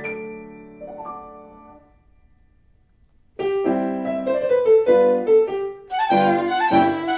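Piano music from a film score. It fades out about two seconds in, pauses briefly, then starts again about three and a half seconds in and grows fuller near the end.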